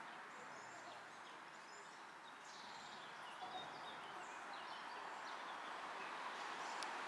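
Faint, steady outdoor background noise with scattered short, high bird chirps.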